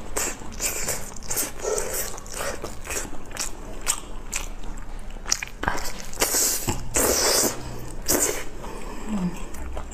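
Close-miked eating sounds of biting and chewing chili-coated roast lamb leg meat: wet mouth sounds with many short clicks and smacks.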